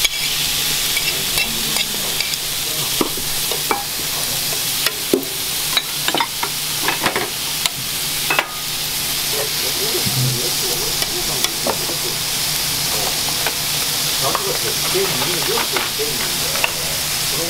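Steady sizzling hiss from a tabletop grill, with frequent light clinks and taps of utensils.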